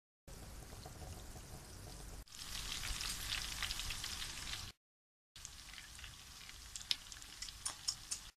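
Hot oil sizzling around besan-battered eggplant and spinach pakoras deep-frying at medium-to-low heat. The sound is cut in and out by edits, getting louder after about two seconds and dropping out for about half a second in the middle. The last few seconds carry sharp crackles and pops in the oil.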